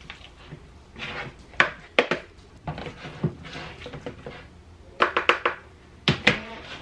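Black serving spoon scraping and knocking against a glass baking dish while leftover casserole is scooped into a plastic container. The sound is a string of sharp clacks, with a quick run of several about five seconds in.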